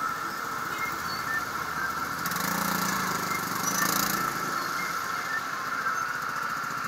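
A motorcycle rider's own engine running at low speed amid surrounding traffic noise while filtering between stopped cars, heard from a helmet-mounted camera. A louder engine drone swells between about two and four seconds in.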